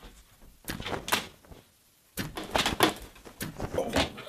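Clatter of clothes hangers: sharp knocks and clacks. A couple come about a second in, then a quick cluster between two and three seconds, and a few more near the end.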